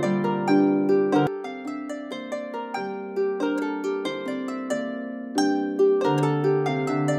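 Background music: a gentle melody of plucked string notes over a low sustained bass line, each note struck cleanly and left to ring.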